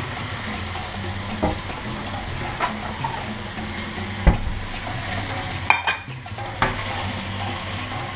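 Chicken frying in a pan on the hob with a steady sizzle, broken by a few sharp knocks and clinks of cookware, the loudest about four seconds in.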